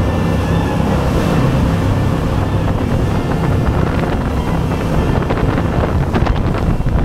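Jet boat ride boat speeding through water: rushing water and wake spray under heavy wind buffeting on the action camera's microphone, with a few sharp splashes toward the end.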